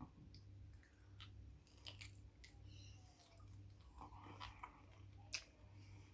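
Faint chewing and mouth sounds while eating king prawns, with small scattered clicks and one sharper click about five seconds in, over a steady low hum.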